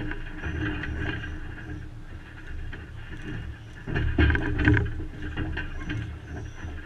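Wind buffeting the microphone in an uneven low rumble over the noise of an outdoor crowd of spectators, swelling louder for about a second around four seconds in.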